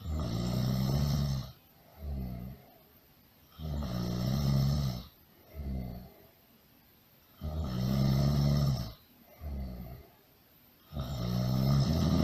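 Snoring on a steady loop: a long, loud snore followed by a short, softer one, the pair repeating about every four seconds.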